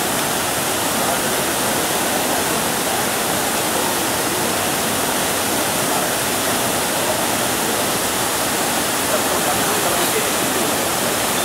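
Floodwater from the full Chembarambakkam Lake pouring over its spillway weir, a loud, steady rushing of falling, churning water.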